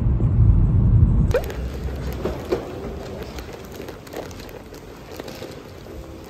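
Low road rumble inside a moving car for just over a second, then a sudden cut to a hard-shell suitcase's wheels rolling over a stone floor, with small clicks and knocks from the wheels and footsteps.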